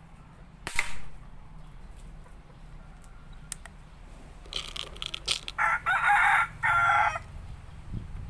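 A single sharp air gun shot through a chronograph a little under a second in. About five seconds in, a rooster crows loudly, a long call lasting about two seconds.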